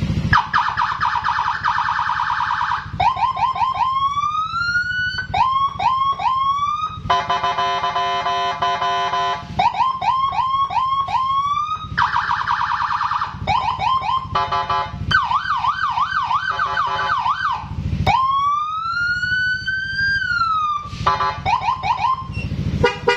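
A patwal-style police-escort electronic siren, switched on and cycled through its tones: a steady warble, bursts of quick rising whoops, a fast high-low warble and a long wail that rises and falls, changing every few seconds.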